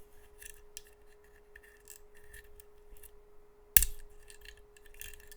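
Light clicks and taps of hard resin 3D-print support pieces being handled, with one sharp click a little under four seconds in.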